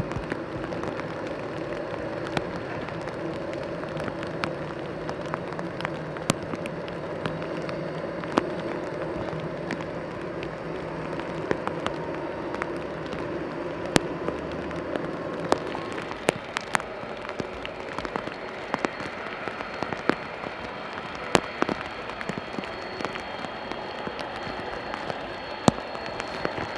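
Heavy raindrops tapping irregularly close to the microphone over a steady rain hiss, with the low hum and thin high whine of a distant jet airliner's engines, which fade about two-thirds of the way through.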